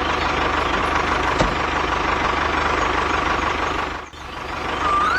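Engine running steadily, with a single short knock about a second and a half in; the sound dips out briefly about four seconds in, like a cut.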